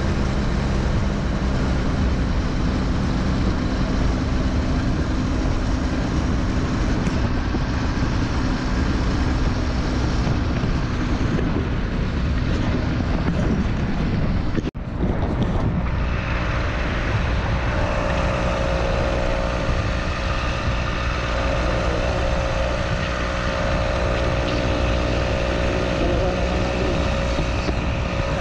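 Wind buffeting the microphone of a camera on a road bike moving at about 30 to 40 km/h, with tyre noise from the asphalt: a loud, steady rush. It drops out for an instant about halfway through and resumes.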